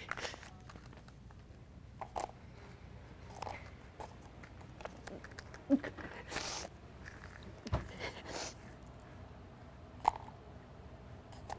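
Papers and cups being gathered up off a hard floor: scattered rustles and crinkles of paper with light taps and clicks, the longest crinkle about six seconds in.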